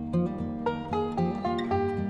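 Background music: a melody of plucked string notes, several a second.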